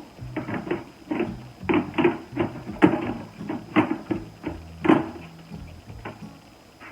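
Hard plastic storage-bin panels and parts clacking and knocking together as they are handled and fitted, a dozen or so irregular sharp knocks.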